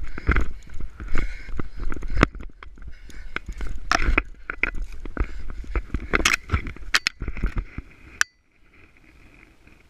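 A person moving fast through dry grass and brush: footfalls, crunching and rustling stalks, and knocks and scrapes of a body-worn camera against clothing and branches. The noise stops suddenly a little after eight seconds, leaving only a faint hush.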